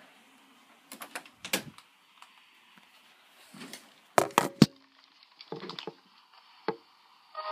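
A series of scattered clicks and knocks from a phone being handled and bumped, the loudest cluster about four seconds in.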